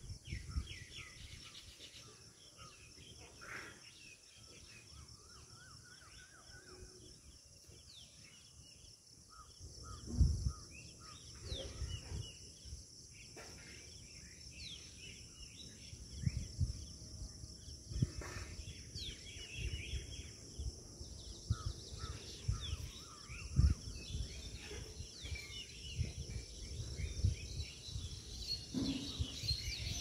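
Many birds chirping and calling from the trees in short, scattered calls over a steady high insect drone. Now and then there is a low rumble, the loudest about ten seconds in and again a little before the end.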